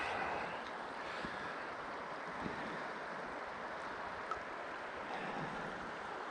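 Steady rush of shallow river water flowing, with a faint click about four seconds in.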